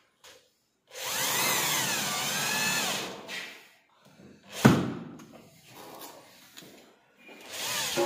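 Cordless drill/driver running in short bursts, its motor whine wavering up and down as it drives a screw through a drawer lock's metal plate into the wooden cabinet frame. A sharp knock about four and a half seconds in, and the drill starts again near the end.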